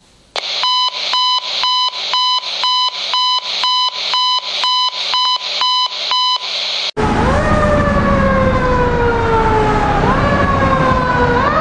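A pulsing alarm tone, about two beeps a second, cuts off sharply about seven seconds in. A fire engine's siren then takes over, wailing in cycles that rise quickly and fall slowly, over engine and road noise as the truck approaches.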